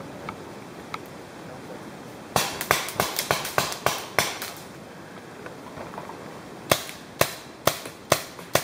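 Paintball markers firing: a rapid string of about ten sharp pops over two seconds, then a slower run of single shots about half a second apart near the end.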